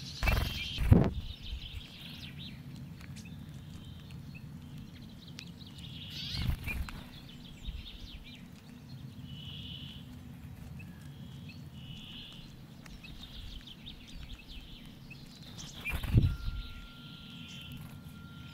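Small finches calling, with short soft notes repeating every second or so. Loud low rushes of noise cut in just after the start, about six seconds in and about sixteen seconds in, over a steady low background hum.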